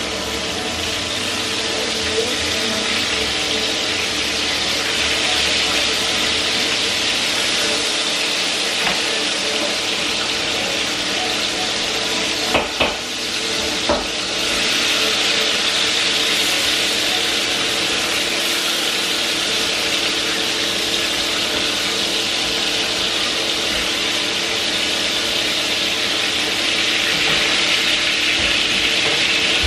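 Sliced onions sizzling steadily in a frying pan on the stove, with a faint steady hum underneath. A few sharp knocks about halfway through.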